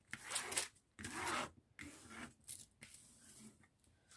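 Stiff diamond-painting canvas and its plastic cover rustling and crinkling as they are handled: two louder swishes in the first second and a half, then softer scattered rustles.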